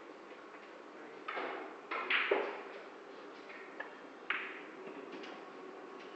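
Billiard balls clicking as shots are played: a few sharp knocks with a short echoing tail, about a second in, a louder cluster around two seconds, and another a little after four seconds.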